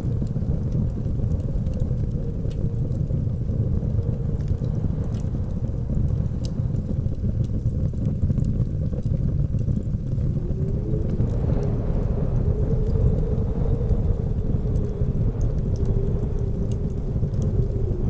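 Blizzard wind rumbling steadily low, with a faint wavering howl that shifts pitch about eleven seconds in, and sparse faint crackles of a wood fire.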